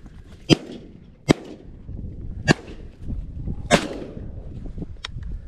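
Four shotgun shots fired at flushing snipe, spread over about three and a half seconds, the first the loudest. A faint sharp click comes near the end, over low rustling and wading noise.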